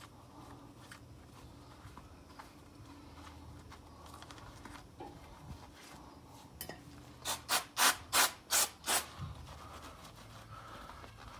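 A cloth rubbing and wiping over a brake caliper, then about six short, quick squirts from an aerosol cleaning spray can aimed at the caliper, louder than the wiping.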